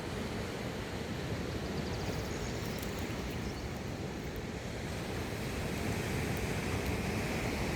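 Sea waves washing onto the shore: a steady rush of surf, with wind buffeting the microphone.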